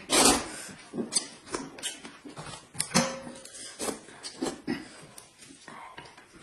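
Noodles being slurped loudly, one big slurp at the start, followed by a string of shorter wet slurps and chewing sounds.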